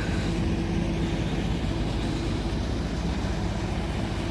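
1957 Ford Thunderbird's Y-block V8 idling steadily.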